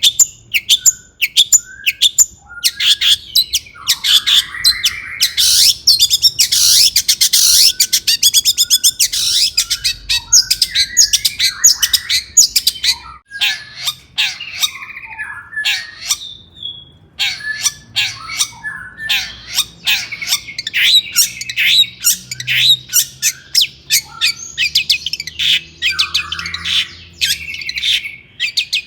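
Long-tailed shrike singing in a fast, energetic run of sharp chirps and rapid ticking notes, broken by harsh rasping calls, with a brief pause about halfway.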